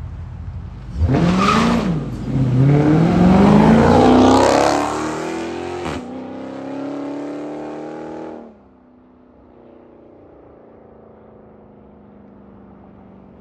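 Dodge Challenger SRT 392's 6.4-litre HEMI V8, straight-piped with 4-inch quad tips, making a loud full-throttle pull from a standstill. The exhaust note rises sharply about a second in, falls back once, climbs again to its loudest, then settles lower as the car pulls away and drops off abruptly after about eight seconds, leaving a faint distant drone.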